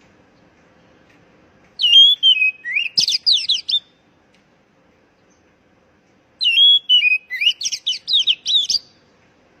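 Oriental magpie-robin singing two phrases, each opening with a sliding, whistled note and breaking into a run of quick, sharp notes, with a few seconds of quiet between them.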